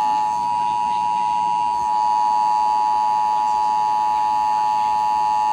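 Emergency Alert System two-tone attention signal: two steady tones (853 and 960 Hz) sounded together as one loud, unbroken buzz. It announces that an emergency alert message is about to follow.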